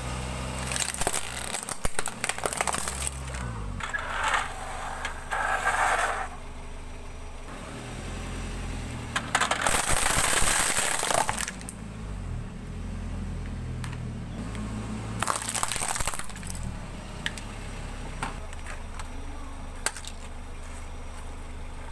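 Car engine running at low speed as the car's tyre rolls over plastic toys, with bursts of plastic cracking and crunching and scattered sharp cracks. The loudest crunching comes about ten seconds in, as the tyre presses down on a plastic toy bus.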